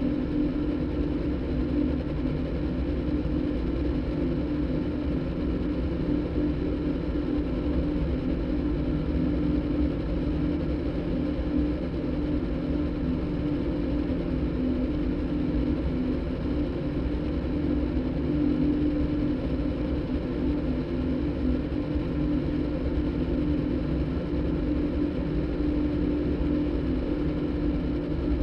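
Steady electronic drone made in Kyma by cross-synthesizing a motorbike's engine sound with a đàn bầu (Vietnamese monochord) recording. It sounds like an engine hum with one held, low-middle tone and does not change.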